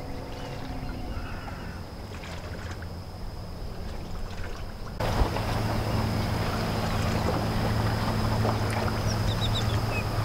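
Boat engine running with a steady low drone, water wash and wind noise, jumping much louder about five seconds in; a fainter steady low hum before that.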